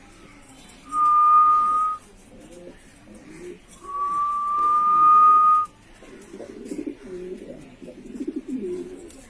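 Mili racer pigeons cooing, low rolling coos that grow loudest in the last few seconds. Two long, steady, high whistle notes cut across them, a short one about a second in and a longer one about four seconds in; these are the loudest sounds.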